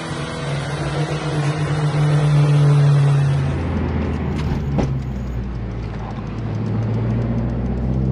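Dodge Neon SRT-4's turbocharged 2.4-litre four-cylinder running on a chassis dyno, its pitch creeping up slightly. About three and a half seconds in, the sound switches to inside the cabin while the car is driven, with a lower steady engine drone and a few sharp knocks about five seconds in.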